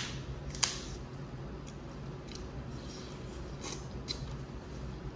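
Dungeness crab shell being cracked and snapped apart by hand, a scattering of sharp cracks, the loudest right at the start and a little over half a second in, over a low steady hum.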